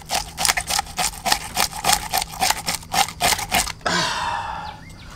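A plastic fish scaler with a scale-collecting cup, scraped in quick repeated strokes against a fish's scales, about five strokes a second. The strokes stop a little before four seconds in and give way to a softer rustle.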